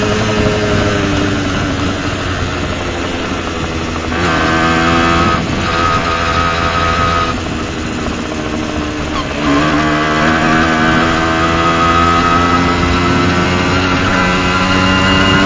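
Tomos ATX-60 moped's small two-stroke engine running, fitted with a Dellorto 19 PHBG carburettor. Its note sags at first, jumps up as the throttle opens about four seconds in and again near ten seconds, then climbs steadily in pitch toward the end as it picks up revs.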